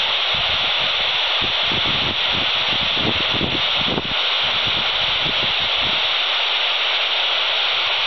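Steady FM static hiss from a Quansheng handheld radio's speaker, tuned to 145.800 MHz with no voice coming through, with irregular low rumbles underneath.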